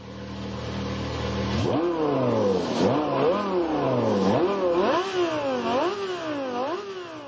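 An engine idling, then revved repeatedly in quick throttle blips, each rising sharply in pitch and falling back before the next.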